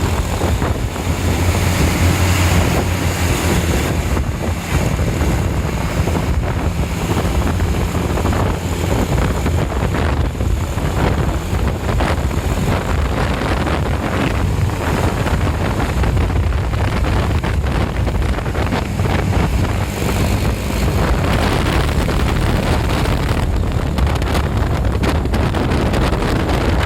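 A vehicle engine running close by as a steady low rumble, with wind buffeting the microphone.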